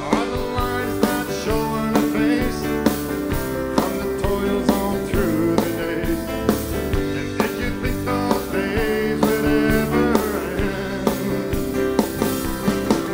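A live band playing a song: drum kit keeping a steady beat under electric and acoustic guitars and bass guitar.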